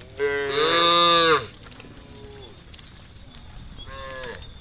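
Cows mooing: one loud, long moo that rises and falls in pitch, then shorter, fainter moos, the last near the end.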